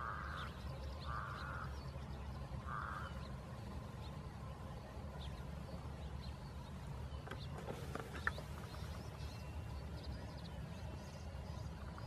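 Three short, harsh animal calls in the first three seconds, with faint high chirps scattered throughout and a steady low rumble underneath.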